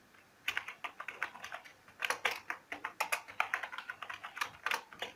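Typing on a computer keyboard: a quick, uneven run of key clicks starting about half a second in.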